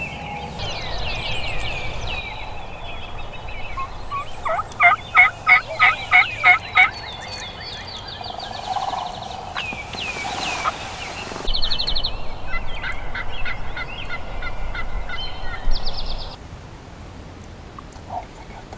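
Turkey yelping: a run of about seven loud, evenly spaced yelps about five seconds in, roughly three a second. Smaller bird calls chirp around it.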